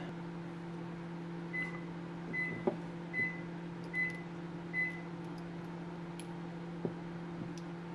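Hot air rework station running with a steady hum while heating capacitor legs on a circuit board. Five short high-pitched beeps come evenly spaced, a little under a second apart, in the first half, with a faint click or two.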